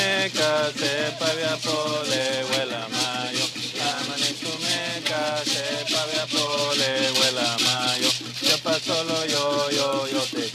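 Mayo deer-dance music: men singing a deer song over the continuous scraping of notched-stick rasps on half-gourd resonators and the shaking of the dancer's gourd rattles and cocoon leg rattles.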